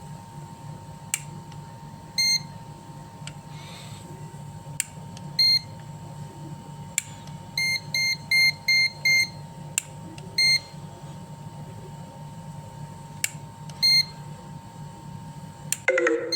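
Short electronic beeps, most likely from the homemade incubator's digital controller. Single beeps come every few seconds, with a quick run of five near the middle. Soft clicks fall between them over a steady low hum.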